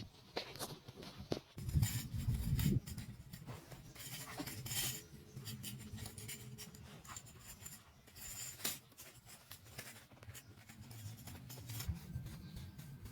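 Hand work on pipe fittings: intermittent scraping and rubbing with scattered clicks and knocks, and a louder low rumble about two seconds in.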